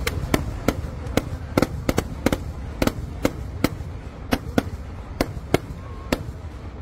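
Volley of Kerala festival fireworks: aerial 'dyna' shells firing and bursting in quick succession, about three sharp bangs a second at irregular spacing, over a continuous low rumble.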